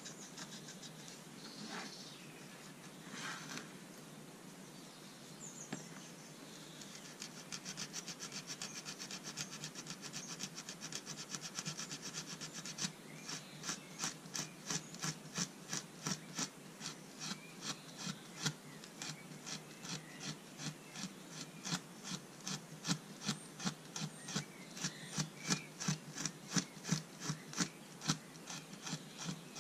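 Green Scotch-Brite pad scrubbing the brass fittings of a boxwood folding rule, back-and-forth abrasive rubbing. A few scattered scrapes give way to rapid scrubbing, which about halfway through changes to slower, louder strokes of about two or three a second.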